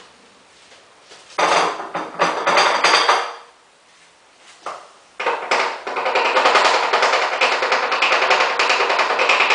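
Dental plaster vibrator rattling a metal flask full of fresh plaster, to settle it and drive out air bubbles. It runs in two spells, a short one of about two seconds, then after a pause a longer, steady buzzing rattle.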